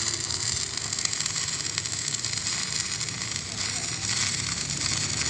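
Electric stick (shielded metal arc) welding: the arc crackles and sizzles steadily as a bead is laid on the steel bracket of a rubber truck engine mount.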